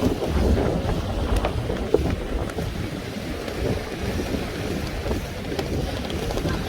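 Strong wind buffeting the microphone, with heavy storm surf rushing behind it.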